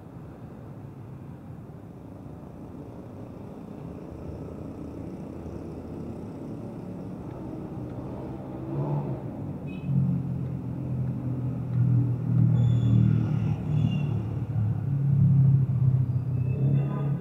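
Low rumble of passing road traffic, growing louder about halfway through.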